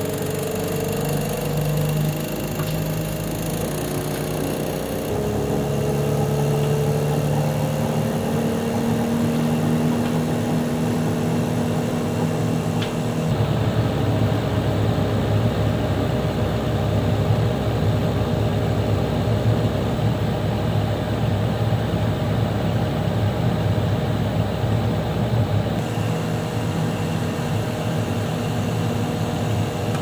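LG portable air conditioner running on fan speed 1: a steady mechanical hum with motor tones and a rattling 'dal-dal-dal' judder. About halfway through a deeper, louder rumble sets in and then eases off near the end, as the unit cycles between quieter and louder running.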